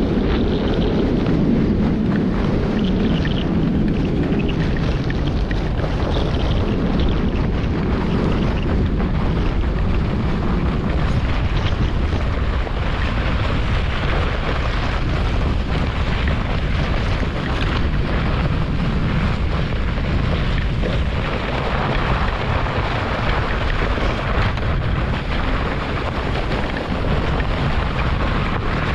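German Luge 115 sled running down a snow-packed toboggan track: a steady rushing rumble of the runners on snow, mixed with wind buffeting the action-camera microphone.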